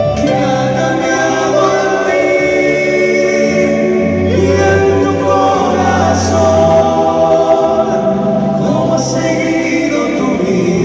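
Live band music with several voices singing together over sustained bass notes and occasional cymbal splashes.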